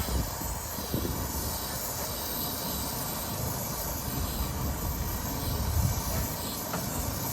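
Brazing torch flame hissing steadily as it heats a joint to free the filter dryer from a copper refrigerant line.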